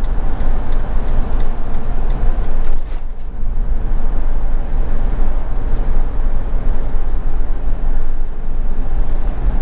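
Steady engine and road noise of a motorhome cruising at speed, heard from inside the cab, with a heavy low rumble.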